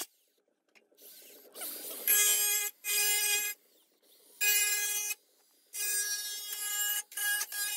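Cordless angle grinder cutting through the sheet-metal hood of a truck, a steady high whine in about five short bursts starting about two seconds in, each cutting off abruptly.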